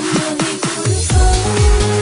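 Instrumental section of a Moroccan pop song with an electronic beat: a few quick drum hits, then a deep kick drum beat comes in a little under a second in, under a held synth note.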